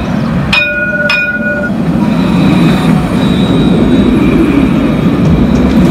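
Light-rail tram sounding its bell twice, about half a second apart, in greeting from the driver; each strike rings on briefly. The tram then runs past close by with a steady noise of wheels on rails and a thin high whine, growing louder.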